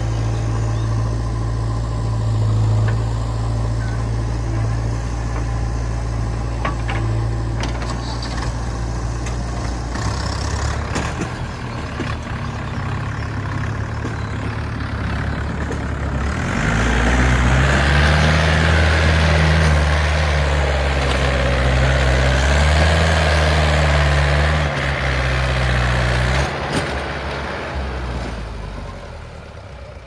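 Diesel engines of a JCB 3DX backhoe loader and a Mahindra 475 DI tractor running steadily. About halfway through, the tractor's engine revs up and labours as it pulls away with a trolley loaded with earth, its pitch rising and falling. It dies away near the end.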